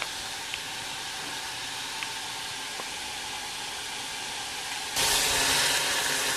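Mushrooms sizzling in a hot frying pan, a steady hiss with a few faint pops. About five seconds in, water poured from a kettle into the hot pan sets off a sudden, louder hiss that keeps going.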